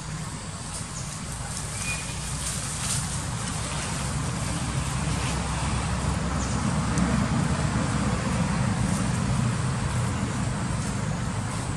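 A low, steady rumble that grows gradually louder over several seconds, with a few faint ticks above it.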